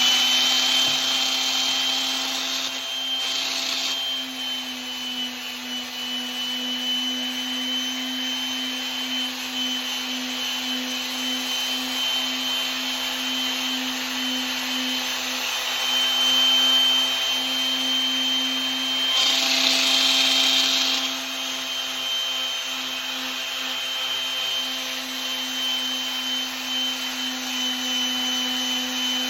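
An electric sander fitted with 320-grit sandpaper runs steadily, with a constant motor hum and high whine. The paper hisses against the brass putter head and hosel, growing louder for a few seconds around 3 s and again about two-thirds of the way through.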